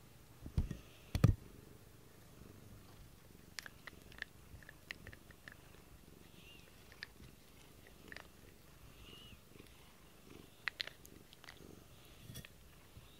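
A cat purring steadily while its fur is brushed with a pink bristled grooming brush, with soft rustles and clicks of the strokes. Two loud low thumps from the cat or brush bumping the microphone come about a second in.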